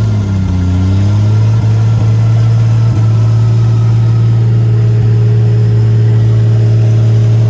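Off-road 4x4's engine running under load. Its revs dip briefly about half a second in, then pick back up and hold steady.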